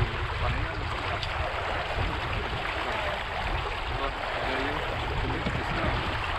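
Water rushing and splashing along the hulls of a Strike 20 trimaran under sail, a steady hiss over a low rumble of wind on the microphone.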